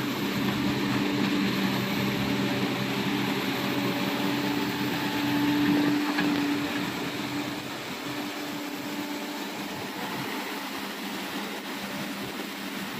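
Mini excavator's diesel engine running under hydraulic load as the bucket digs through an earth dam, with water rushing through the breach. The engine note is strongest for the first six seconds or so, then drops lower.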